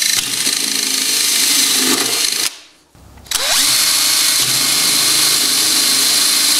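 Cordless drill boring through a plastic battery box. It runs steadily, stops about two and a half seconds in, then spins up again for the second of two holes.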